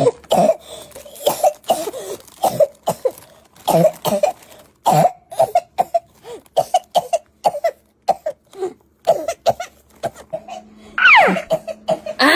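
A person coughing over and over in short, irregular bursts. About eleven seconds in, a pitched sliding sound falls steeply in pitch over a faint steady hum.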